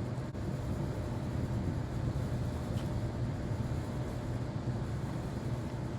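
Steady low mechanical hum with a constant rush of background noise.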